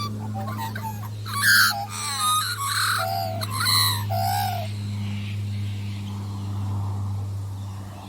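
Birds calling: a flurry of short squawks and chirps, busiest and loudest in the first half, over a steady low hum.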